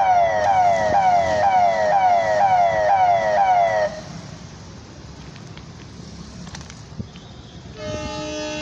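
An electronic warning siren sounds a fast repeating falling wail, about two and a half per second, and cuts off suddenly about four seconds in. Near the end a locomotive horn starts, a steady chord of several tones, as the train approaches.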